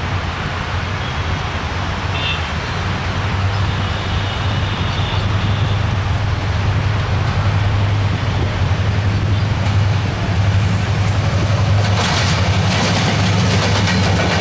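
Diesel-electric locomotive's engine running with a steady low drone that grows louder as it approaches hauling a passenger train. Near the end, a rapid clatter of wheels over the rails starts as the train passes close.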